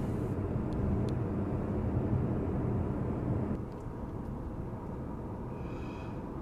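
A motor vehicle running close by: a steady engine and road rumble that drops off a little about three and a half seconds in.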